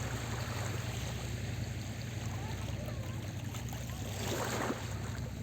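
Sea waves washing steadily on a beach, over a steady low hum.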